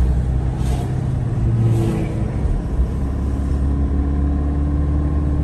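Car being driven, heard from inside the cabin: a steady low rumble of engine and road noise, with two brief hisses of passing traffic in the first two seconds.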